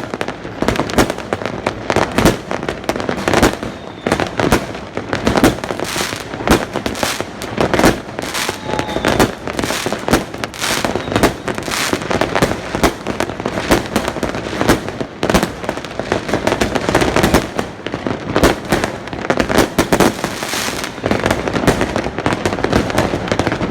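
Fireworks going off continuously: a dense, unbroken run of bangs, pops and crackles with no pause.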